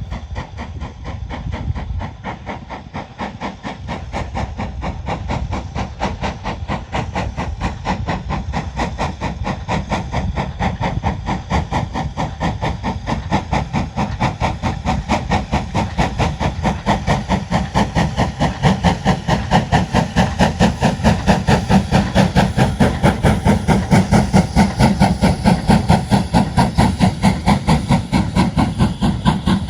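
BR Standard Class 5MT 4-6-0 steam locomotive working under steam, its rapid, even exhaust beats growing louder.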